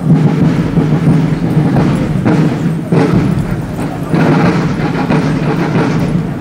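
Loud military march music accompanying a parade march-past, with a steady low note and heavy beats roughly once a second.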